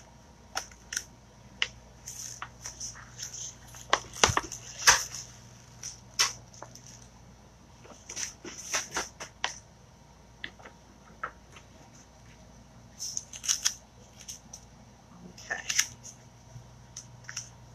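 Handling noise from working a vinyl stencil transfer and its peeled-off backing sheet: scattered clicks, taps and crinkles, loudest about four to five seconds in.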